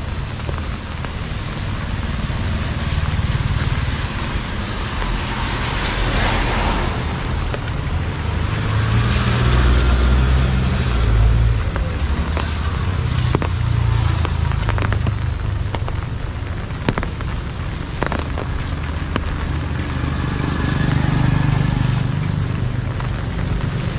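Street traffic: motor vehicles passing over a steady hiss, with low engine rumbles swelling about ten seconds in and again near the end, and a few sharp clicks.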